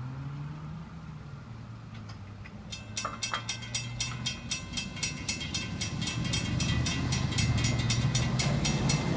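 Railroad grade-crossing bell ringing in rapid, even strokes from about three seconds in, while the crossing gates lift. Stopping near the end. Road vehicle engines rumble low underneath and grow louder as traffic starts across.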